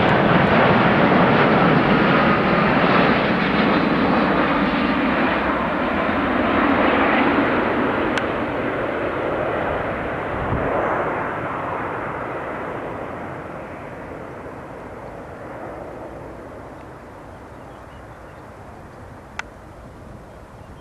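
Boeing 787 Dreamliner's turbofan engines passing overhead in a display flight, a broad jet rush with a faint whine that slowly fades as the airliner flies away. A single sharp click near the end.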